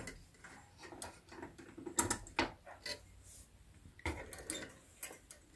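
Scattered light clicks and knocks of hands handling metal parts while a drive belt is worked onto the pulley at an industrial sewing machine's clutch motor.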